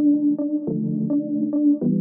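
Background music: synthesizer or electric-piano chords with a steady pulse of notes about every half second.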